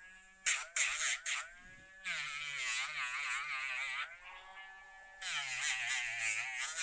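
Rotary nail grinder whirring against a dog's toenails: three brief touches, then two longer grinds of about two seconds each, its pitch dipping and wavering as it bears on the nail.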